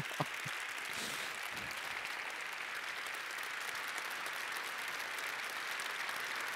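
Audience applauding steadily, a sustained ovation at the end of a talk.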